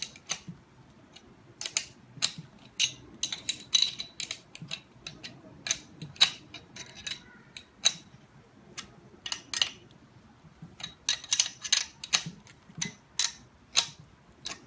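Metal wrench and pump fittings clicking and clinking as parts of a polyurethane injection pump are tightened by hand: irregular sharp metallic clicks, some in quick clusters with a slight ring.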